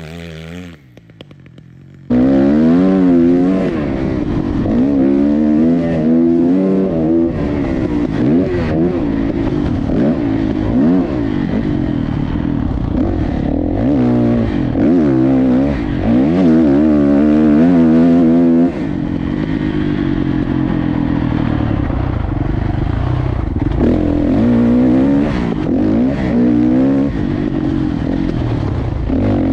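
Dirt bike engine heard up close from on board, revving up and dropping off again and again as the rider accelerates, shifts and rolls off around a motocross track. It comes in suddenly about two seconds in, after a short fainter stretch.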